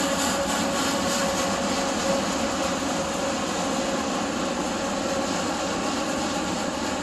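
Freight train cars rolling past, a steady rolling noise of wheels on rail with a faint steady tone in it, easing off slightly toward the end.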